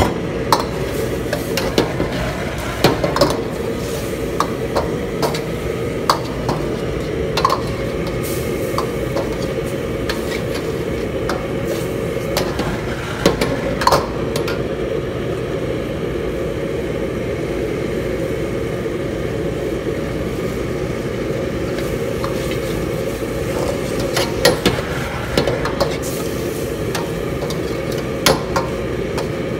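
A steel ladle stirring chicken in chilli sauce around a stainless steel wok, with irregular metal-on-metal clinks and knocks against the pan. Under it runs a steady, loud background roar.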